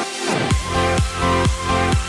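Electronic dance music. A four-on-the-floor kick drum comes in about half a second in, at about two beats a second, under sustained synth chords.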